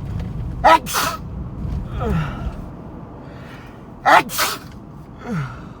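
A person with a head cold sneezing twice, about three and a half seconds apart. Each sneeze is a sharp, loud blast, followed about a second later by a shorter, weaker falling sound.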